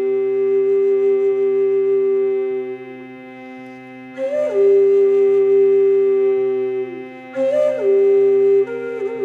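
Native American flute in C playing a slow melody of long held notes over a steady low drone, with breathy attacks and a brief higher note about four seconds in and again about seven seconds in.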